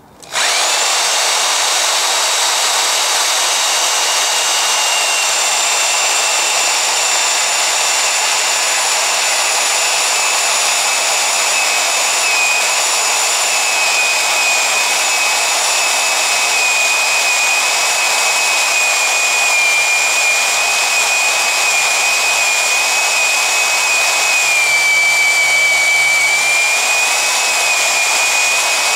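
Milwaukee Heavy-Duty portable band saw starting up about half a second in and cutting through a steel flat bar: a steady high whine over the hiss of the blade biting into the metal.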